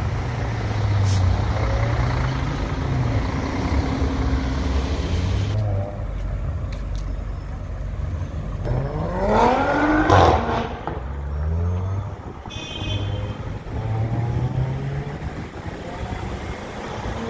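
Audi RS5's engine accelerating hard, revving up in a rising sweep about nine seconds in that is the loudest moment, then carrying on with stepped changes in pitch as it shifts and pulls away through traffic.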